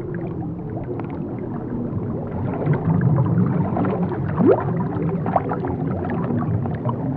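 Bubbling, gurgling water, a steady churning mass of small pops and clicks, with one short rising squeal about four and a half seconds in.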